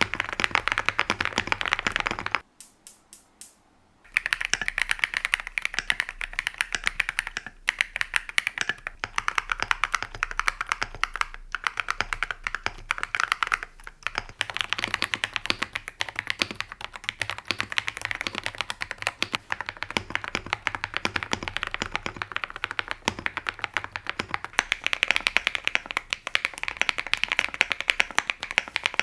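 Fast typing on mechanical keyboards fitted with ceramic keycaps: a dense run of clacky keystrokes. About two and a half seconds in there is a short break that lasts a second and a half and holds only a few sharp, high clicks.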